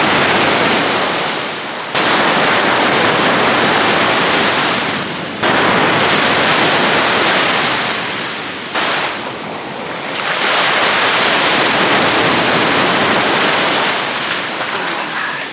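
Surf breaking and washing up a sandy beach: a loud rushing noise that comes in several surges, each starting abruptly, with lulls between.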